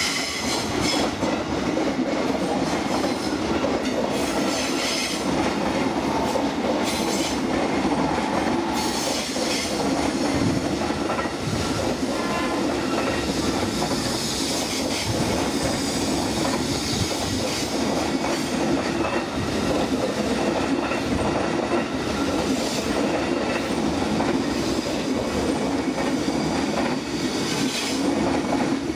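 KRL Commuterline electric commuter train running past at close range, its wheels clattering over the rail joints in a steady, loud rumble of rolling stock.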